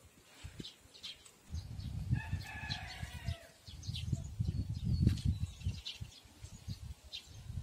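A rooster crowing once, starting about two seconds in, a single drawn-out call that drops in pitch at the end. Short high bird chirps come and go, over a gusty low rumble of wind on the microphone that is loudest about five seconds in.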